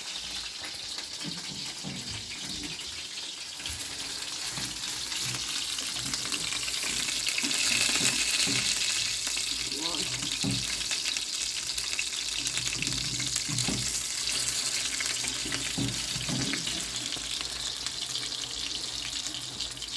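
Water running from a tap into a sink, a steady hiss that swells a little partway through, with faint voices underneath.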